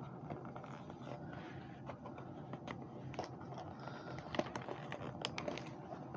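Fingers picking and scraping at the end flap of a Hot Wheels 5-pack cardboard box, making scattered small scratches and clicks that come more often in the second half as the flap is worked open.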